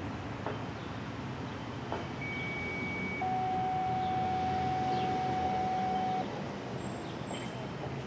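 Outdoor background noise with a steady electronic tone, one pitch held for about three seconds in the middle before cutting off; a fainter higher tone runs with it.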